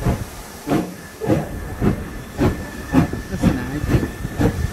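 Steam locomotive exhaust chuffing as the train gets under way, the beats coming steadily faster, heard from a carriage window.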